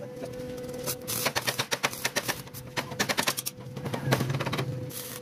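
Thin steel rods clinking and tapping against each other and the concrete floor as they are handled and laid out: a quick, irregular run of metallic clicks over a steady hum.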